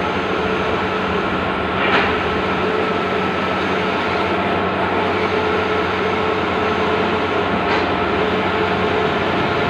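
Large-format outdoor banner printer running, a steady mechanical whir with a constant hum. Two faint clicks come about six seconds apart.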